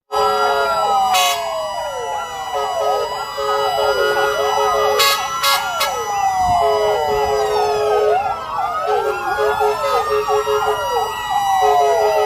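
Many fire-truck sirens sounding together, their wails rising and falling out of step with one another, over steady held tones that break off and resume.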